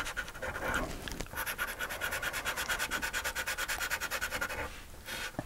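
Blue chalk scribbled back and forth on black paper, colouring in a drawn wheel: a fast, even scratching of about ten strokes a second, starting about a second in and stopping near the end.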